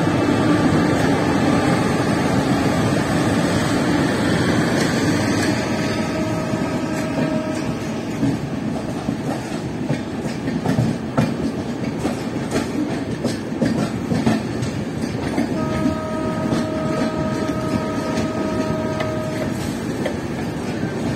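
Steady running rumble and wheel clatter over rail joints, heard from the open window of a moving train passing a freight train. A train horn sounds twice: briefly about six seconds in, and for about four seconds later on.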